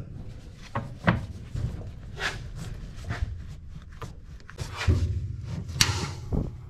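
Gloved hand twisting and pulling a rubber fill hose off the neck of a plastic fuel tank, with rubbing and scuffing and scattered small clicks and knocks. The rubbing is loudest about five seconds in.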